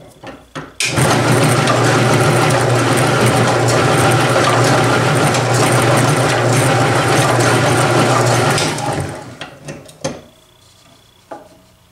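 Bench drill press spinning a Vortex Ball Roller with a cast wheel-weight lead round ball inside, rolling texture onto the ball. It is a steady motor hum with dense rolling noise that starts about a second in, winds down after about eight seconds, and is followed by a few light clicks.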